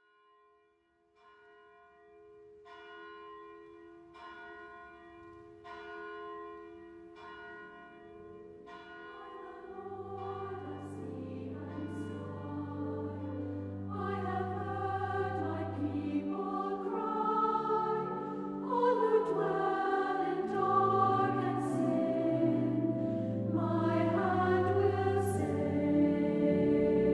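Choral music. It opens with a held low note and slow, evenly spaced bell-like strikes about every second and a half. Then a choir comes in about nine seconds in, and the music swells steadily louder.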